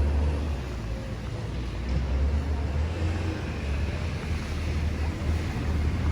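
Low, steady rumbling noise of a moving vehicle.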